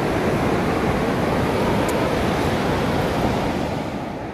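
Surf breaking and washing up on a sandy beach, a steady rush of waves, with wind rumbling on the microphone. The rush eases slightly near the end.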